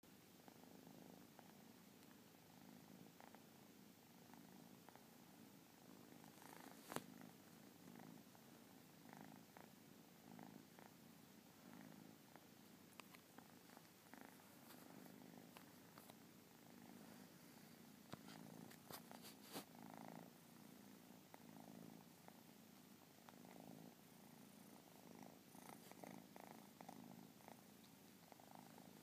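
Persian kitten purring faintly and steadily, the low purr pulsing in a slow rhythm. A few sharp clicks sound over it, the loudest about seven seconds in and several more around twenty seconds.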